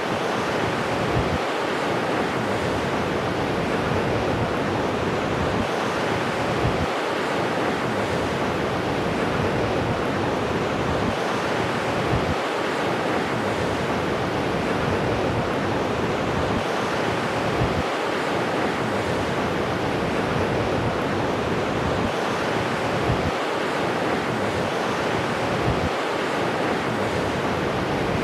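Sea waves breaking and washing on the shore in a continuous rush of surf, with wind rumbling on the microphone in irregular gusts.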